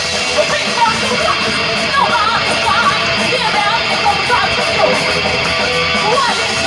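A live heavy metal band playing loudly with electric guitars. From about two seconds in, a wavering melodic line rises and falls over the band.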